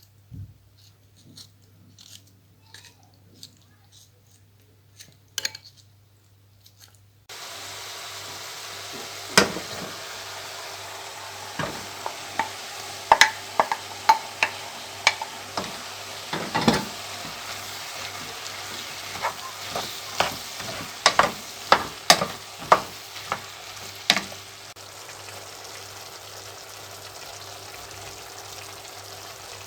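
A few faint clicks, then about seven seconds in food starts sizzling steadily in a hot frying pan. A utensil knocks and scrapes against the pan many times as the food is stirred, and near the end the sizzle goes on a little more quietly without the knocks.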